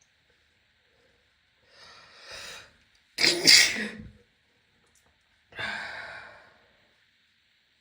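A woman sneezing: a drawn-in breath, then one loud sneeze about three seconds in, followed by a quieter, sudden burst of breath about two seconds later, part of a sneezing fit.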